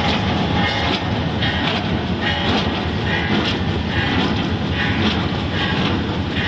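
Commercial walnut chopping machine running with walnut kernels going through it, a steady loud mechanical clatter and rattle.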